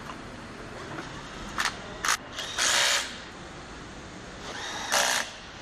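A power tool runs in short bursts over steady factory noise. There are two quick bursts about one and a half seconds in, a longer one near the three-second mark, and another about five seconds in.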